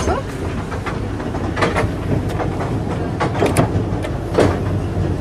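Heritage train carriage rumbling steadily along the track, with scattered clacks and knocks from the wheels and running gear.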